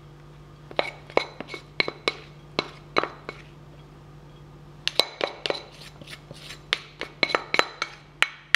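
Plastic spatula knocking against a ceramic plate as couscous is scraped off it into a dish: a run of light clinks, each with a brief ringing tone, a pause of about a second and a half midway, then another quicker run.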